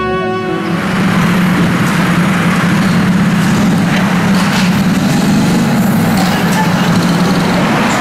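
City street traffic, with a vehicle engine running steadily close by and a few faint clicks and knocks.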